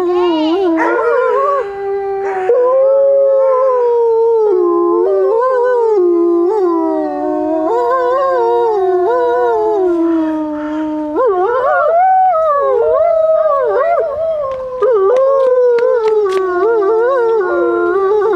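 A pack of wolves howling in chorus, several voices overlapping, each sliding and wavering in pitch.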